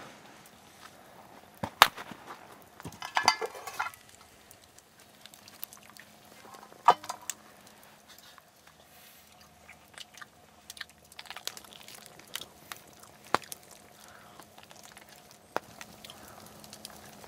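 Boiled fox meat being handled out of a pot and eaten: scattered clicks and knocks, a short pitched sound about three seconds in, then biting and chewing near the end.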